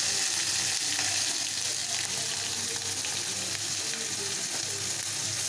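Hot oil sizzling steadily in a kadai as a tempering of mustard seeds, cumin, green chilli, ginger and curry leaves fries in it.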